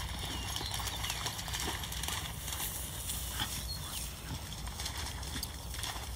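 Irregular rustling footfalls through tall meadow grass, over a steady low rumble of wind on the microphone.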